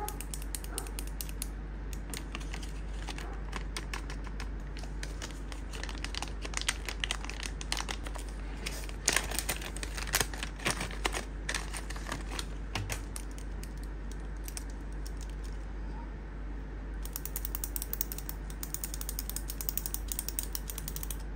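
Plastic pens and their packaging handled by hand: scattered small clicks and rustles. Near the end comes a fast run of small clacks as a handful of clear plastic gel pens knock together.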